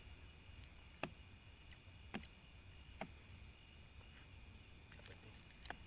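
Near silence: a faint steady chorus of insects, broken by four short sharp clicks.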